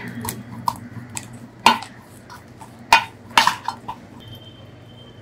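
A small steel bowl and fingers clinking and knocking against a steel plate while a crumbly sesame-peanut-jaggery mixture is pressed flat: a run of about eight irregular sharp knocks over the first four seconds.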